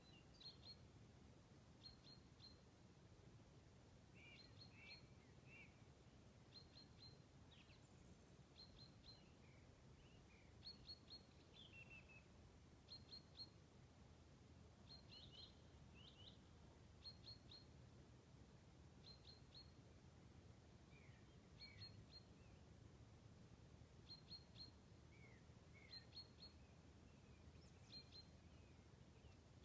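Songbirds chirping faintly: short high chirps in twos and threes every second or two, with lower falling notes here and there, over a steady low rumble.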